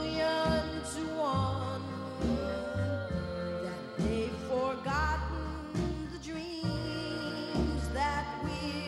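Music: a slow sung ballad, a voice holding and sliding between long notes over a band with a regular bass beat.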